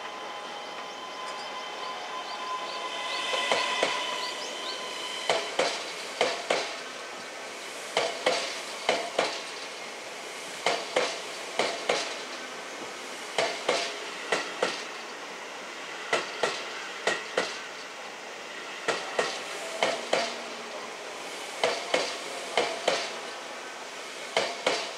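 A Keisei AE-series Skyliner electric train running along the platform track, with a whine that climbs in pitch about three seconds in. Its wheels then clack over the rail joints in quick pairs as each bogie passes, the pairs coming about every second or so.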